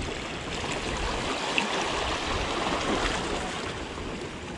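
Steady rushing noise of moving water, even and without distinct strokes or tones.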